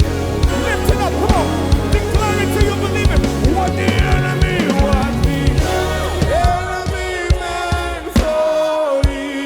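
Live gospel worship band playing, with a steady drum beat, bass and voices singing over it; the bass drops away about two-thirds of the way through.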